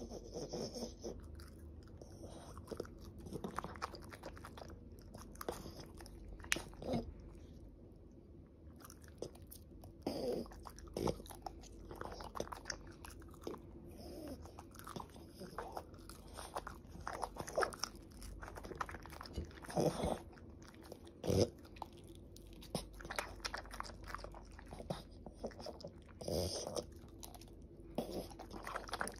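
A French bulldog chewing and crunching whole cooked shrimp with the shells on, in irregular crunches and wet smacks of the jaw.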